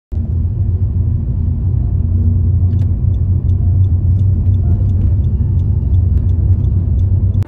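Car cabin noise while driving: a loud, steady low rumble of engine and road. It starts suddenly and cuts off suddenly at the end.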